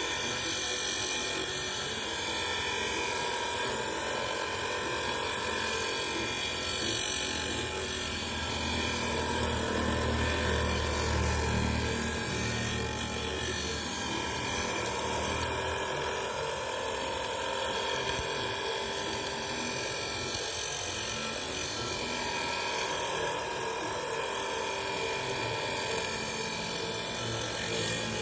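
Electric power tool running steadily with a high whine, its motor holding one speed; a deeper hum joins for several seconds around the middle.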